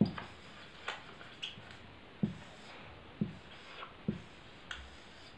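Dry-erase marker writing on a whiteboard: a string of short strokes and squeaks, about one every half second to a second, with a few soft knocks against the board.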